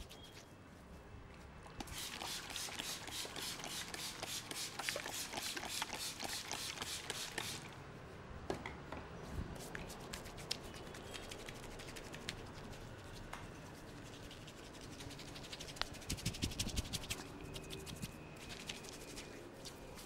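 Hands massaging a head of wet hair: fingers rubbing and scratching over the scalp in a fast, dense run of strokes from about two to seven seconds in, then softer rubbing, with another run of sharper strokes near the end.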